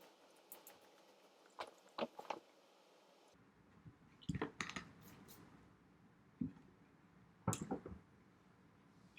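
A person chewing chicken nuggets, with scattered faint wet mouth clicks and smacks; a few louder smacks come about two, four and seven and a half seconds in.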